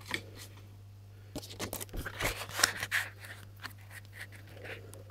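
Paper scratchcards being handled and shuffled: a run of irregular rustles and scrapes for about two seconds, then a few scattered ones, before any scratching begins.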